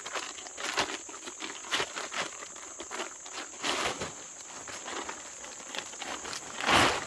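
Irregular rustling and crunching, like dry leaves or gear being handled, loudest near the end, over a steady high-pitched drone of insects.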